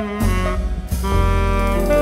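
Live jazz ensemble with saxophone, string section and woodwinds playing together; about a second in, they settle onto long held notes over the bass.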